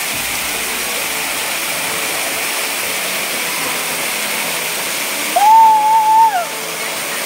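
Waterfall pouring steadily down a rock face. About five and a half seconds in comes a loud, held, high-pitched vocal whoop that rises, holds for about a second and falls away.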